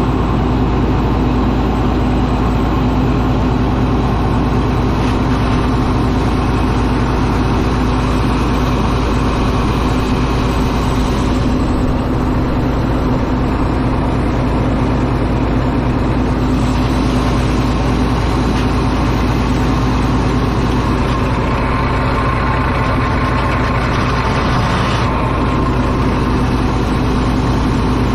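Old Caterpillar D8 bulldozer engine running at a steady idle.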